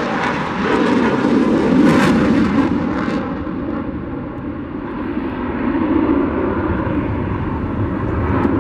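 Boeing 757's Rolls-Royce RB211 turbofans at departure thrust: a loud, crackling jet roar whose higher hiss fades about three seconds in, leaving the low rumble.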